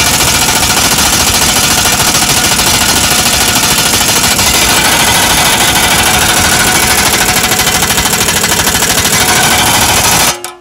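Pneumatic impact wrench hammering without a break as it drives the screw of a C-clamp ball joint press, forcing a new ball joint into place; it stops abruptly near the end.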